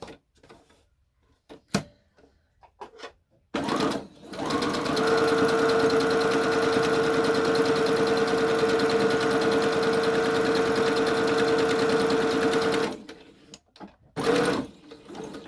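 Electric sewing machine stitching a seam. It starts about three and a half seconds in, falters briefly, then runs at a steady speed with an even hum for about eight seconds before stopping. A few light clicks come before it starts.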